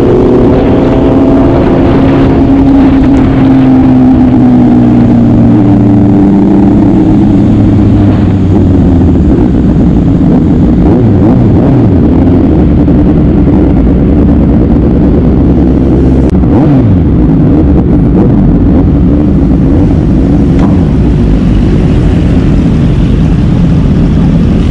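Motorcycle engine running on the road under a steady rush of wind noise. Its pitch falls over the first several seconds, then holds fairly steady, with a couple of brief dips and rises.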